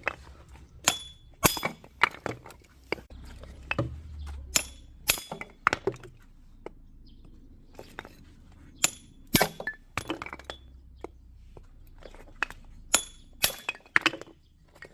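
Firewood being split: a run of sharp, irregular chopping strikes on wood, some with a short metallic ring, pausing for about two seconds midway.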